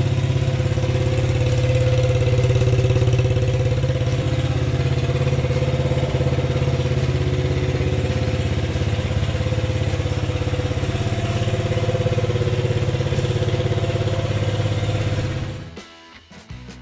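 Yamaha Raptor 50 quad's small single-cylinder four-stroke engine idling steadily, warm after a restart. The sound cuts off suddenly near the end.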